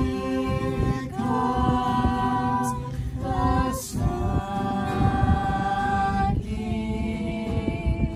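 A small group of voices singing a song together in sustained phrases, with a steel-string acoustic guitar strummed underneath.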